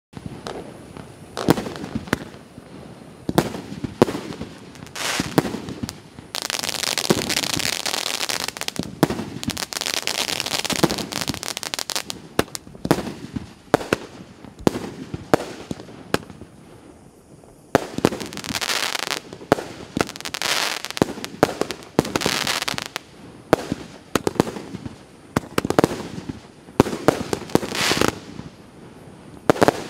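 Piroff 'Skomorokh' fountain-and-shot consumer firework going off: repeated sharp bangs of shells launching and bursting, with long spells of hissing in between.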